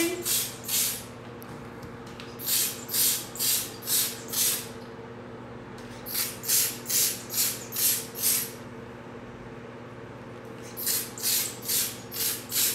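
Hand-pump cake-paint sprayer puffing paint onto a buttercream cake: short hisses about two a second, in runs of five or six with pauses between.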